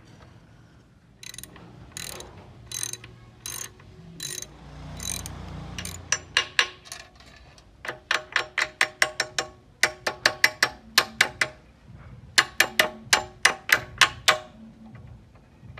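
Metal-on-metal tool work. A few spaced sharp strikes are followed, from about six seconds in until near the end, by runs of sharp, ringing metallic knocks at about three or four a second.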